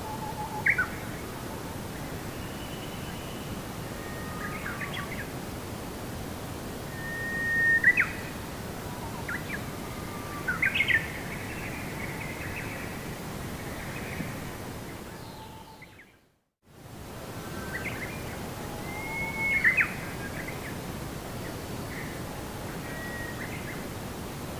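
Scattered bird calls and chirps, short whistles and quick notes, over a steady background hiss of outdoor ambience. About 15 seconds in, everything fades out to silence for under a second, then fades back in, like a loop or edit seam.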